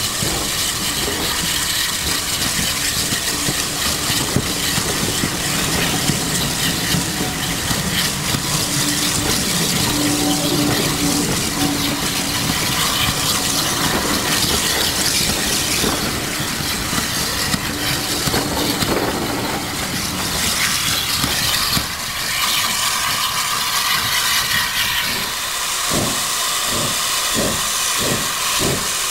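Steam locomotive hissing steam steadily. Near the end it starts a regular chuff of exhaust beats, about two a second.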